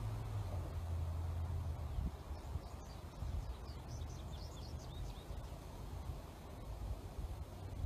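A small bird chirping: a quick run of short, high chirps in the middle, over a steady low rumble.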